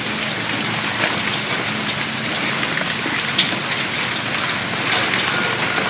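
Steady rain falling, with scattered sharp drip ticks.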